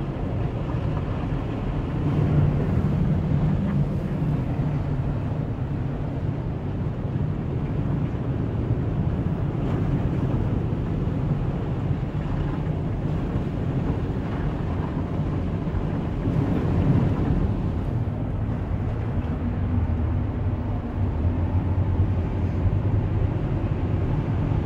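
A car driving, its engine hum and tyre and road noise steady throughout, the engine's pitch dropping a little in the second half.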